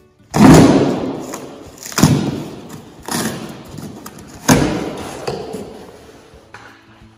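A cardboard box being cut and torn open on a wooden workbench: four loud strokes of ripping tape and cardboard, each fading over about a second, the first, about half a second in, the loudest.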